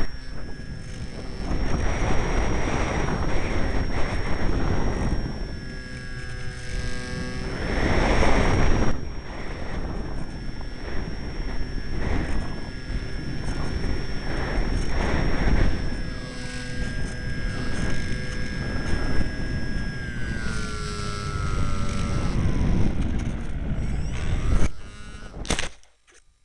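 Strong wind buffeting the microphone in loud gusts, over a steady motor-like whine that glides down in pitch about two-thirds of the way through; the sound cuts off abruptly near the end.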